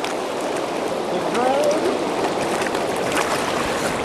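Steady rush of river water churning below a dam, with a faint voice briefly heard about a third of the way in.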